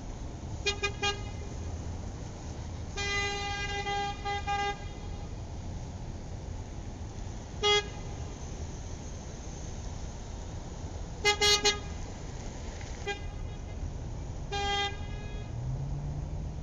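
A vehicle horn tooting on and off: quick runs of short toots and one toot held about two seconds, over a steady low rumble like traffic.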